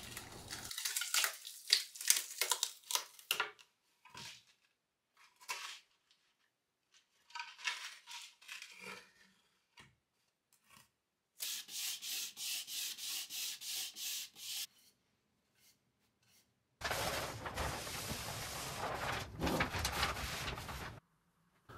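Bench-top handling noises: scattered light clicks and scrapes, then a run of even rubbing strokes about three a second, and near the end a few seconds of steady rubbing.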